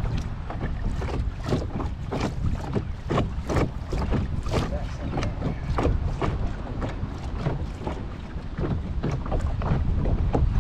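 Strong wind rumbling on the microphone, with small waves slapping against a boat's hull in frequent, irregular splashes.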